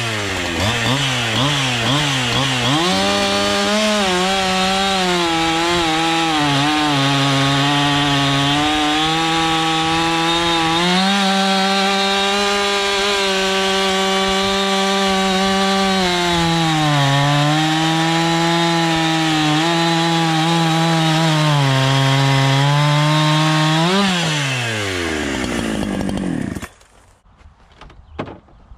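Gas chainsaw cutting through a maple log at full throttle. After a few quick revs it settles into a steady note under load, its pitch sagging and recovering as the chain bites, then revs free and winds down; the sound cuts off sharply a couple of seconds before the end.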